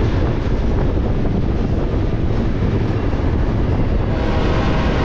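Diesel-electric freight locomotives rumbling steadily past at speed, with wind noise on the microphone.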